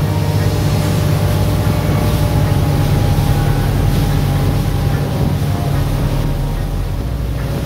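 Motorboat engine running steadily at a constant pitch, a low even hum.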